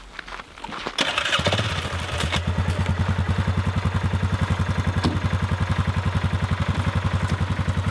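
A vehicle engine starts about a second in and settles into an even, rapidly pulsing idle.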